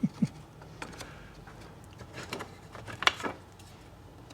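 Scattered light clicks and knocks of wooden beehive frame parts being handled and fitted together, with a small cluster about two seconds in and a sharper click about three seconds in.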